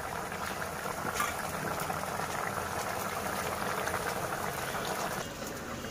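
Katla fish curry with potatoes at a rolling boil in an open pan: a steady bubbling.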